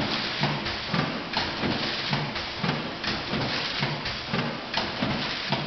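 Automatic vertical coffee sachet packing machine running, its mechanism working in a rhythmic clatter as it forms, seals and cuts film sachets, about two strokes a second.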